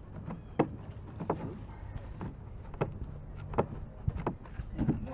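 Scattered knocks and scrapes of a corrugated plastic culvert pipe and its flared plastic end section being handled and fitted together by hand, over a low steady rumble.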